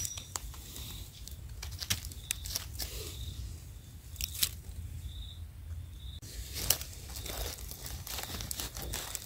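Dry fallen leaves rustling and crackling under hands in scattered bursts as a mushroom is plucked from the forest floor and the soil around another is worked with a knife.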